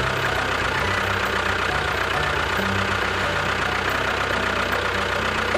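An engine running steadily at idle, with a fast, even knocking beat.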